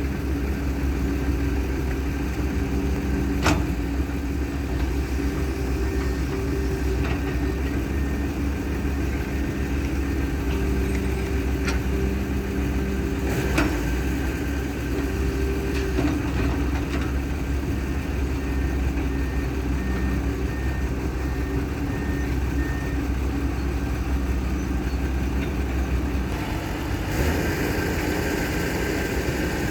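Excavator engine running steadily, with a few sharp knocks. The sound changes near the end.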